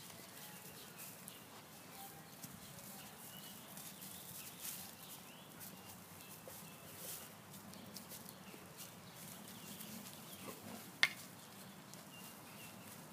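Quiet outdoor sound of dogs moving and sniffing about in straw, with light scattered rustling, a few faint animal calls in the background, and one brief sharp sound about eleven seconds in.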